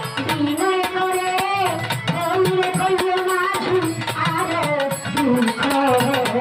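Violin playing a Bengali folk melody with vibrato and sliding notes over a steady hand-drum rhythm in the tabla style.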